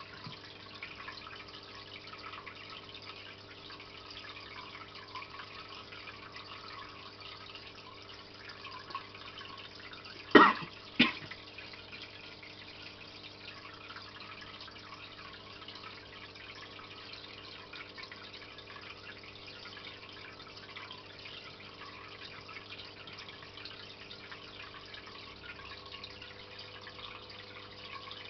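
Aquarium filter trickling and splashing steadily into the tank water, with a low steady hum. About ten seconds in come two sharp knocks, a little over half a second apart.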